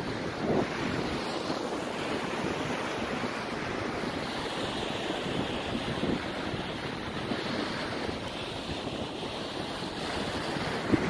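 Surf washing onto a sand beach, with wind buffeting the microphone in a steady rushing noise.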